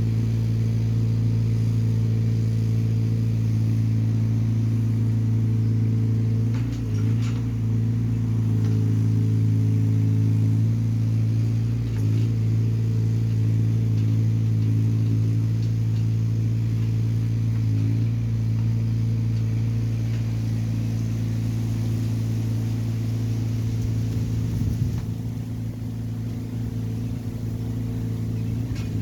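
Hyundai small excavator's diesel engine running at a steady speed, with a few faint knocks over it. The engine note drops slightly near the end.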